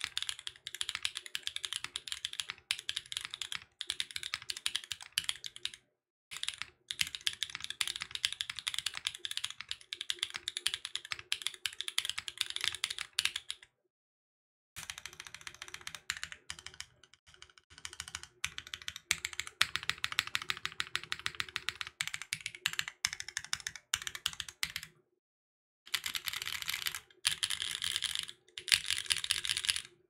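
Fast typing on a Portal65 mechanical keyboard with an aluminium plate, factory-lubed Black Jacket light-tactile switches, GMK ABS keycaps and no dampening: dense runs of key clacks, broken by a few short pauses.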